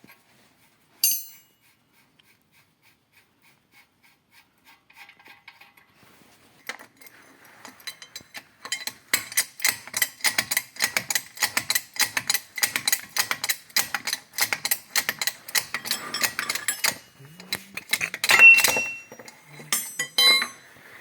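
Hand tools working metal on a car's front suspension: a single sharp clink, then a long run of rapid metallic clicks, about five a second, with a louder scraping burst near the end.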